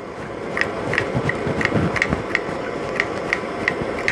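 Hand pump on a multi-fuel stove's fuel bottle being worked to build pressure, each stroke clicking about three times a second. Under it the lit burner, running on petrol, gives a steady rushing sound.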